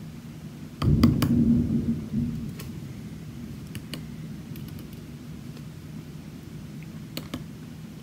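Light, scattered clicks and taps of small metal lock parts and tools being handled on a tabletop as a pin-tumbler lock is taken apart, over a steady low hum. About a second in, a louder low rumble lasts for a second or so.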